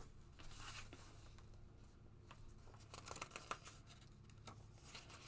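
Faint rustling and light taps of loose paper sheets being handled and sorted, with a small cluster of rustles about three seconds in.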